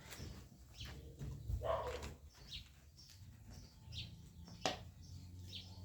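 Small birds chirping in short high notes, repeated every second or so, over a faint low hum, with one sharp knock just under five seconds in.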